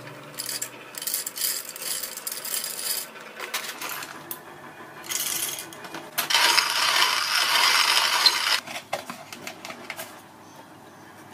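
Roasted coffee beans poured into a metal hand coffee grinder, clattering against the metal in several pours. The longest and loudest pour comes about six seconds in.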